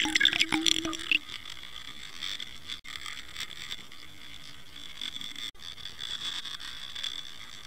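Water rushing past a Water Wolf underwater camera being pulled through the sea on a fishing line, as heard from inside its sealed housing. Crackling bubbles and splashes for about the first second, then a steady hiss broken by two very brief dropouts.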